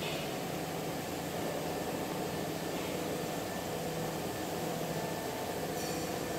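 Steady mechanical hum and hiss of running workshop machinery, with a low drone and a faint higher tone held level.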